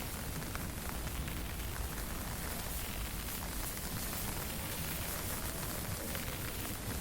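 Wind and fine drizzle: a steady rushing noise with a heavy low rumble, typical of wind buffeting the microphone, and faint scattered ticks of raindrops.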